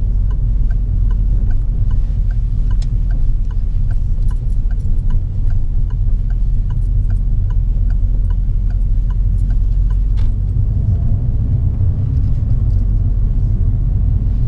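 A car's turn-signal indicator ticking about twice a second, for a left turn, over the steady low rumble of the engine and tyres inside the cabin. The ticking stops about ten seconds in.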